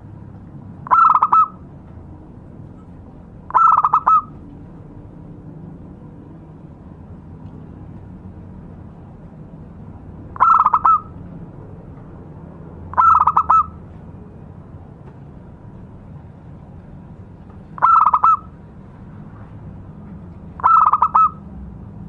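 Zebra dove (perkutut) cooing: six short, stuttering coos, each about half a second long, in three pairs a few seconds apart.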